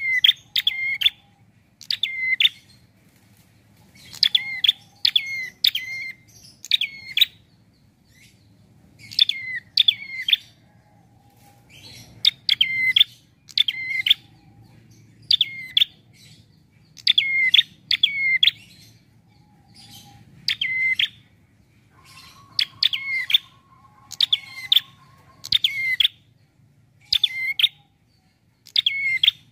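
A caged prenjak (tailorbird) calling: loud, sharp chirps, each dropping quickly in pitch. They come in quick runs of two to four with short pauses between the runs.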